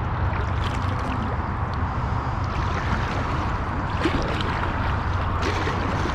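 Paddling an Oru folding kayak on choppy water: irregular paddle splashes and water sloshing against the hull, over a steady low rumble of wind on the microphone.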